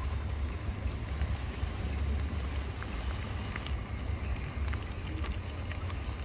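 Wind buffeting the microphone in a steady, wavering low rumble, with scattered faint light ticks over it.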